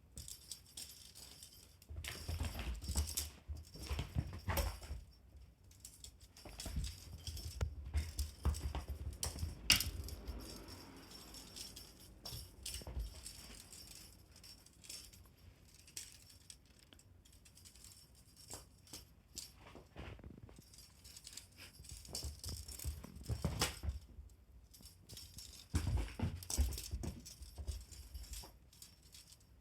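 Pets playing with a teaser-wand toy: jingling and rattling in irregular bursts, mixed with thumps and scrabbling on the floor, busier in three spells with quieter stretches between.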